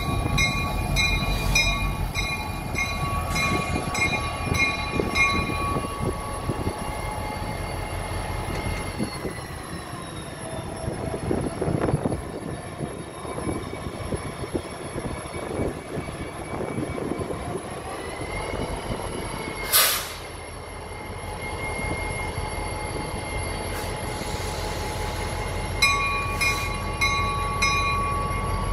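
EMD SD40E diesel locomotive rumbling along at low speed. A bell rings about twice a second for the first few seconds and again near the end. In between there are drawn-out squeals rising and falling from the wheels, and one sharp bang about two-thirds of the way through.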